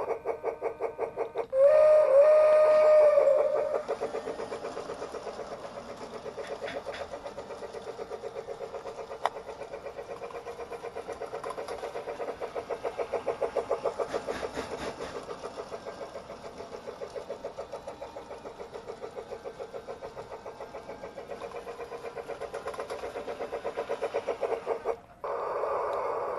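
Lionel Polar Express toy train's built-in steam sound effects: rhythmic chuffing throughout, with a two-tone whistle blast lasting about two seconds near the start.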